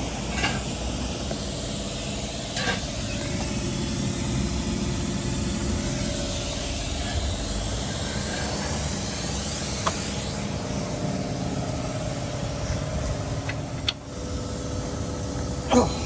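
A car running steadily, with a low engine rumble and a few faint clicks.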